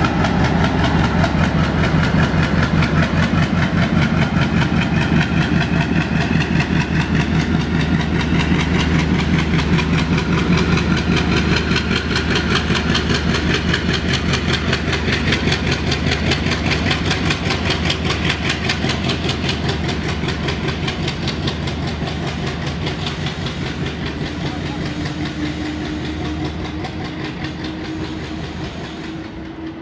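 ALCO WDG3A diesel locomotive's V16 four-stroke DL560C engine working hard as it pulls a passenger train away, chugging with a rapid, steady beat, along with the coaches rumbling over the rails. The sound fades gradually over the last third as the train draws away.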